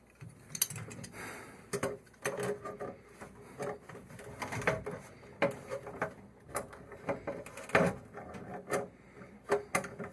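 Irregular clicks and knocks of pliers and brass plumbing fittings being handled and fitted together.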